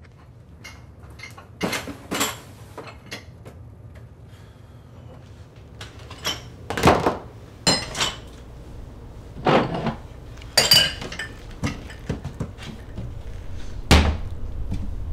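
Dishes and mugs clinking and knocking as they are handled and packed into a plastic storage tub: about eight separate clatters, the loudest near the end. A low steady hum runs underneath and grows toward the end.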